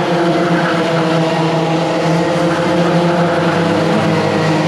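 Several 100cc two-stroke racing kart engines running together on track, a dense layered drone held at a fairly steady pitch.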